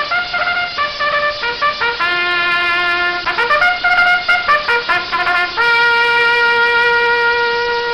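Trumpet sound effect: a quick melodic phrase of short notes, then one long held note through the second half.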